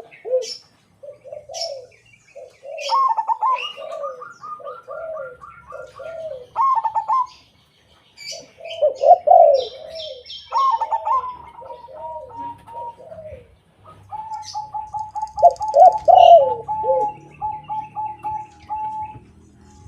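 A zebra dove and a white spotted dove cooing in turn. Several runs of quick, evenly spaced staccato coo notes alternate with deeper, rolling coo phrases, with short gaps between them and sharp high chirps over the top.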